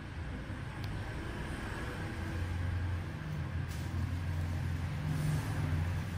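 Steady low motor hum under a faint background hiss, with a short hiss about three and a half seconds in and a faint tick near the start.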